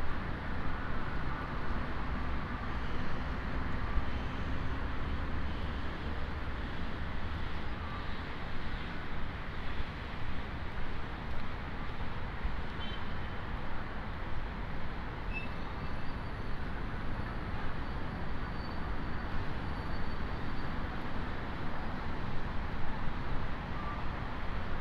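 Steady street traffic noise: cars running along a city road, with a continuous low rumble.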